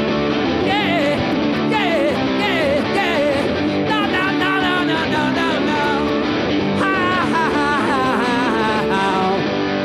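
Electric guitar played live through an amp: a rock-and-roll lead break with bent, wavering notes over held chords.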